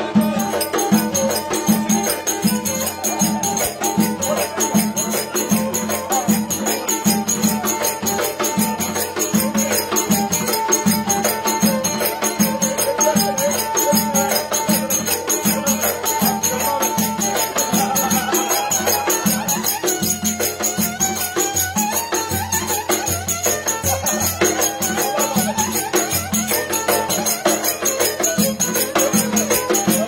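Live Turkish folk dance music: a kemane (small bowed fiddle) playing the melody over a steady davul drum beat. About two-thirds of the way through, the melody shifts to a new phrase.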